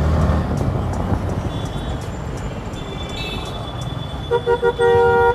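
Street traffic with a motorcycle engine running low at first, then a vehicle horn honking three short toots and one longer blast near the end.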